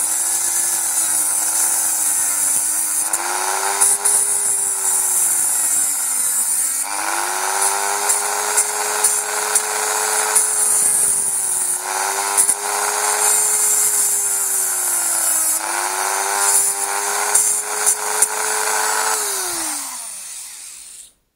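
Small high-speed rotary tool cutting away plastic from a car air-vent housing. Its motor pitch sags and recovers again and again as the bit bites into the plastic. About 19 seconds in it is switched off and winds down to a stop.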